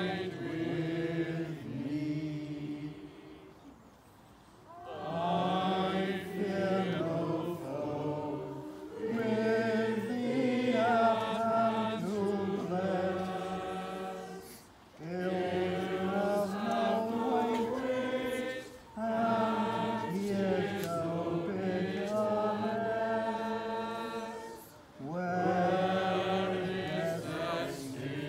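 Church choir singing in long, slow phrases separated by short breath pauses.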